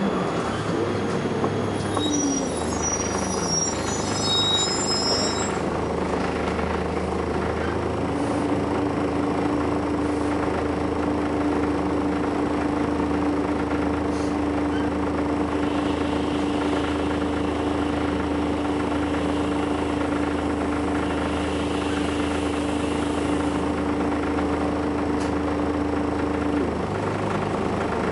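Volvo B10BLE bus running, its engine droning steadily, with a steady tone that comes in about eight seconds in and cuts off near the end. A few short, high squeaks sound in the first few seconds.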